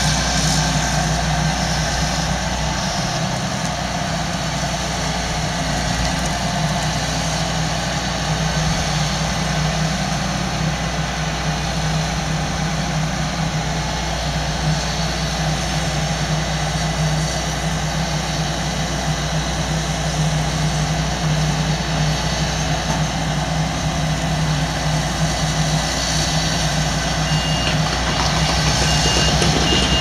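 Claas Lexion combine harvester's engine running steadily as the machine manoeuvres to take up its header. Near the end a reversing alarm beeps in short, evenly spaced pulses.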